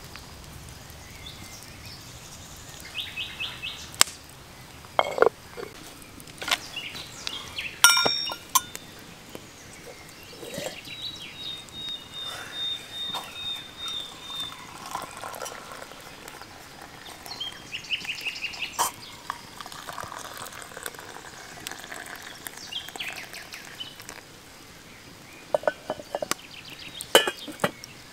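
Tea poured from a metal teapot into steel mugs, with a few sharp clinks and knocks of cookware, the loudest, about eight seconds in, ringing briefly. Birds chirp now and then.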